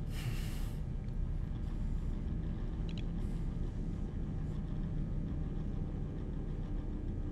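Low, steady rumbling drone of film ambience, with a short hiss right at the start and a few faint ticks about three seconds in.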